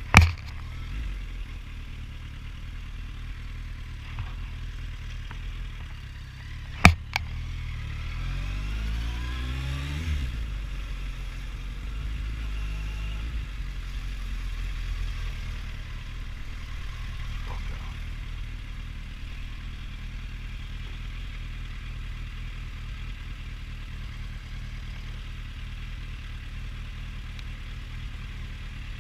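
Motorcycle engine running, revving up in a rising sweep about eight to ten seconds in, then settling to a low steady run. Two sharp knocks are heard, one right at the start and a louder one about seven seconds in.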